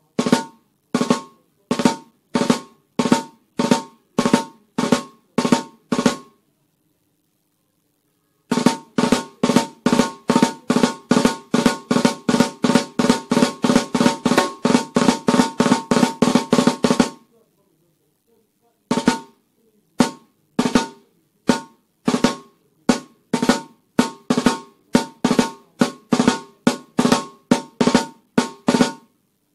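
Snare drum played with wooden sticks, working through drag rudiments: drag ruffs, with two quick grace notes before each main stroke, played slowly and then, after a short pause, much faster. After another pause the single drag tap begins at a slow, even tempo.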